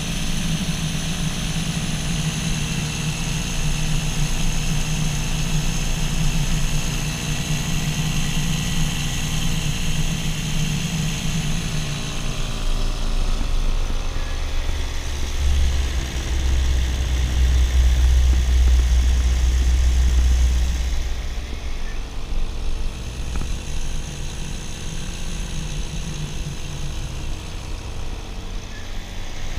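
Paramotor's backpack engine and caged propeller running steadily in flight. The engine's note shifts about twelve seconds in, and a deep rumble swells for several seconds in the middle.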